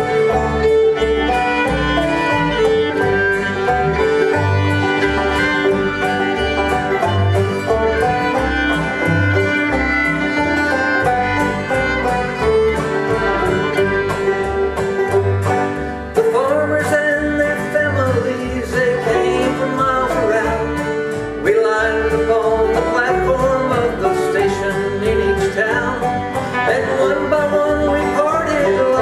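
Old-time string band playing an instrumental break: clawhammer banjo and fiddle over guitar, with a steady pulse of low bass notes. About sixteen seconds in, a sliding, bending melody line comes to the front.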